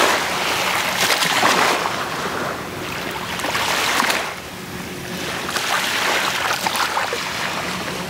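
Small waves washing onto a sandy beach: a hissing surf that swells and eases every couple of seconds.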